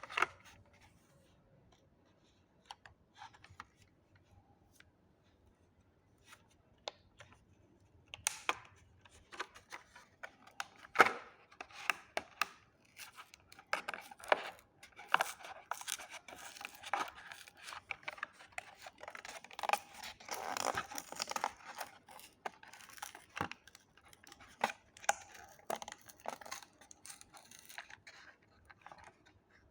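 Toy packaging being opened by hand: a few scattered clicks at first, then about twenty seconds of cardboard and plastic being torn, cut and rustled, with sharp snaps among it.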